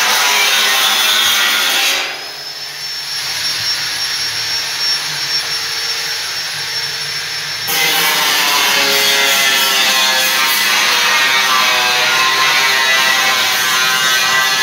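Power-tool noise, a loud harsh rasping like grinding or sanding. About two seconds in it eases off for several seconds under a steady high whine, which rises briefly as it starts, then the loud rasping comes back.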